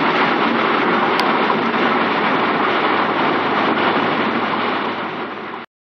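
Cabin noise of a twin-turbo 1993 Mitsubishi 3000GT VR-4 on the road: a loud, steady rush of engine, road and wind noise. It eases slightly near the end, then cuts off abruptly.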